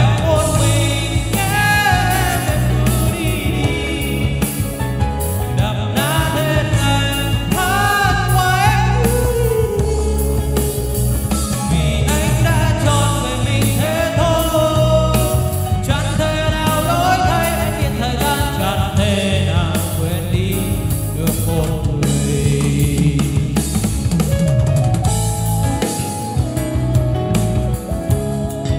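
A man singing into a Boss QM-71 wireless handheld microphone, amplified through a Bose S1 Pro+ portable PA speaker over a backing track with drums and bass. The singing stops near the end while the backing music plays on.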